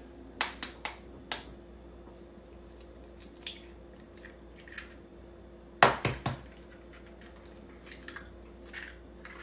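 Eggs being cracked by hand into a stainless steel stand-mixer bowl: sharp cracks and taps of eggshell, a few right at the start and the loudest cluster about six seconds in.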